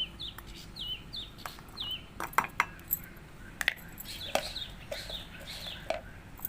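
Chickens calling in a run of short, high, falling peeps, with scattered sharp clicks and knocks of kitchen utensils in between.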